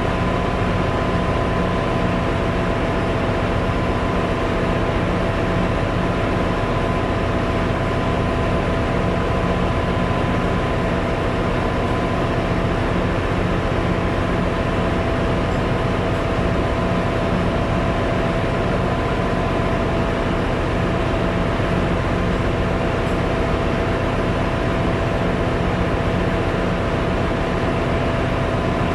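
Steady engine-room machinery noise from the ship's running auxiliary machinery, the main engine itself being stopped with its crankcase doors open: a constant low hum with two steady whining tones above it.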